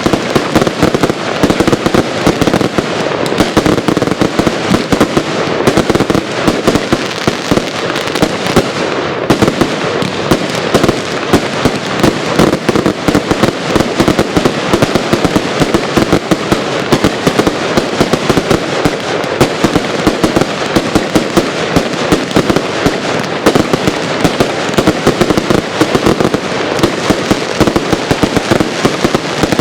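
Dense fireworks barrage: a rapid, unbroken stream of bangs and crackles from many fireworks going off at once, several reports a second with no let-up.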